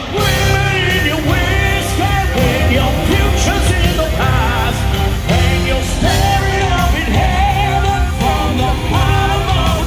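Live rock band playing loud through an arena PA: distorted electric guitars, bass and drums, with a lead vocal melody over them.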